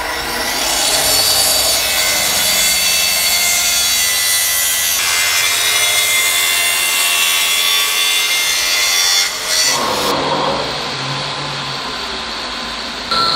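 Makita plunge-cut circular saw running along its guide rail, cutting through a wooden board. It is loud and steady and changes character about halfway through. About ten seconds in, the cutting stops and gives way to quieter workshop noise.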